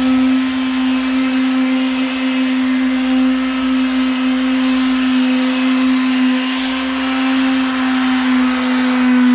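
An electric motor, of the kind in a shop power tool, running steadily at constant speed: a steady hum over a hiss, starting just before and holding unchanged throughout.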